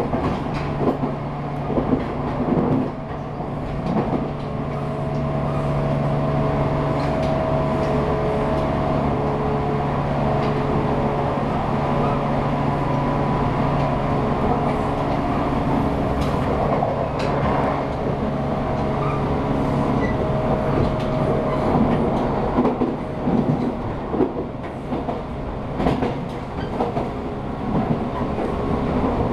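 183/189 series electric multiple unit running at speed, its traction motors whining high-pitched at a steady pitch over the rumble of the car, with the clickety-clack of wheels over rail joints, heard from the vestibule.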